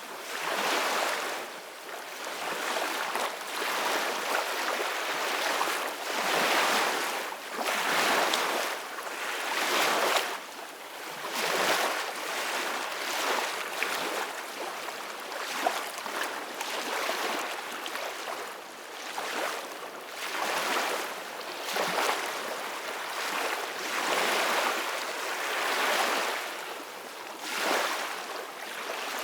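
Small, soft ocean waves washing in on the shore, each surge of hissing water rising and falling every couple of seconds, with little deep rumble.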